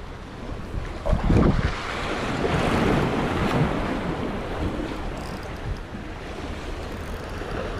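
Sea waves washing in, with wind buffeting the microphone; a louder surge about a second in and another swell a couple of seconds later.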